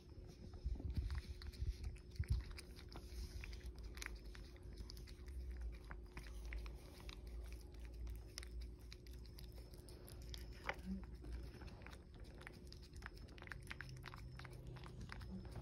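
Cat licking a lickable purée treat (Churu) from a ceramic saucer: a run of small, irregular wet tongue clicks and mouth smacks.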